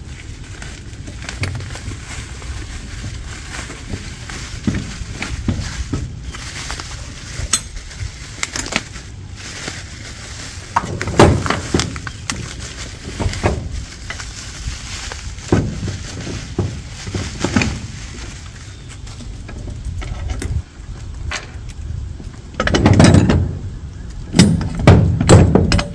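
Plastic wrapping rustling as it is pulled off a hydraulic thumb's cylinder, with scattered clinks and knocks of the thumb's steel parts being handled and set down on a wooden deck. The loudest clatter comes near the end.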